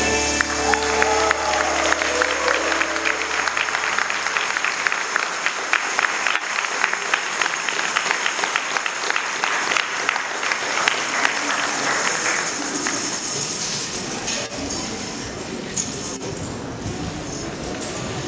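Recorded worship music ends in the first few seconds while hand tambourines are shaken and struck. The dense jingling runs on for several more seconds, then gives way to quieter, scattered hall noise about two thirds of the way through.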